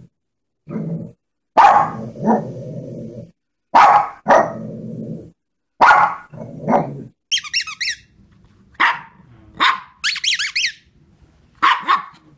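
Shih Tzu barking in a repeated pattern: a sharp bark followed by a shorter second one, about every two seconds. Past the middle come two spells of high, wavering squeaks, and a few more barks near the end.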